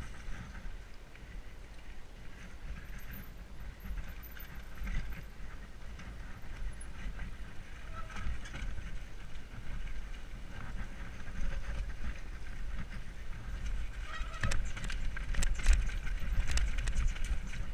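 Mountain bike descending a dirt forest trail, heard from a helmet-mounted microphone: wind rumbling over the microphone and tyres rolling on dirt. Near the end the bike clatters and rattles loudly over loose stones.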